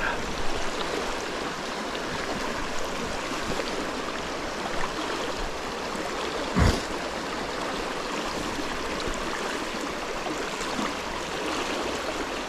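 Mountain stream flowing steadily, a continuous rush of water, with a single dull thump about halfway through.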